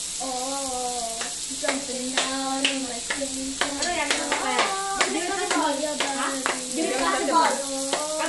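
Voices singing a melody with hand claps keeping time, about two claps a second. Underneath is the steady sizzle of meat frying on a tabletop grill.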